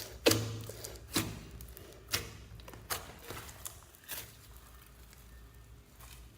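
Slime being mixed and squeezed by hand, giving sharp sticky pops and squelches about once a second that die away over the last two seconds.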